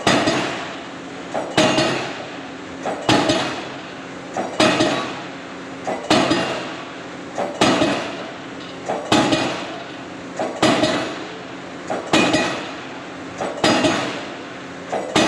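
Diesel pile hammer driving a concrete spun pile: a heavy blow about every one and a half seconds, each with a lighter click just before it, over a steady low hum.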